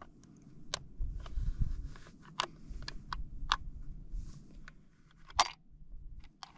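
Sharp clicks and taps from a scoped hunting rifle being handled, about half a dozen spread out, the loudest about five seconds in, over an uneven low rumble.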